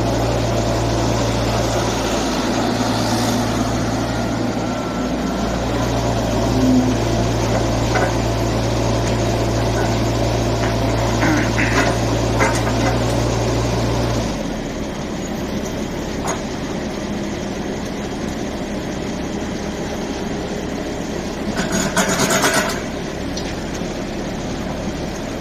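A compact excavator's three-cylinder diesel engine running steadily. About halfway through, its low hum drops to a quieter, rougher running. A brief burst of noise comes near the end.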